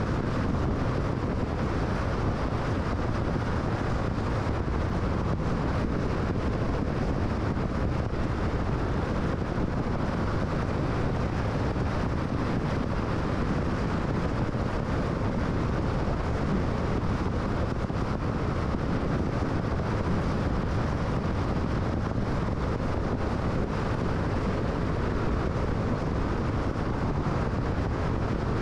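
Steady road noise of a car cruising on the freeway: an even rush of tyres and wind that holds the same level throughout.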